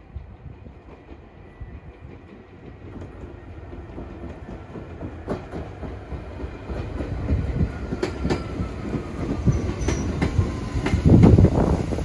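Chichibu Railway electric commuter train approaching and passing close by, growing steadily louder, with its wheels clicking over the rail joints from about five seconds in and loudest near the end.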